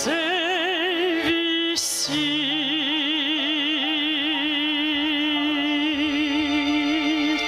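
Solo singer with a strong vibrato finishing a song over instrumental accompaniment: a few short sung syllables, then one long held final note that breaks off near the end.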